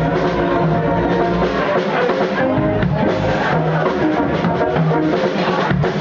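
Live Haitian band music: drum kit and congas keeping a steady beat under sustained horn lines.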